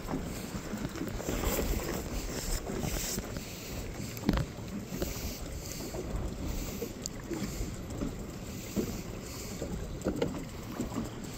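Wind buffeting the microphone over choppy lake water lapping at a boat's hull, with a single sharp knock about four seconds in.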